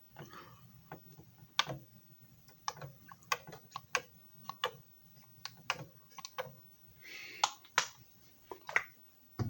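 About a dozen light, irregular clicks and taps, like small hard objects being handled, with a brief rustle about seven seconds in.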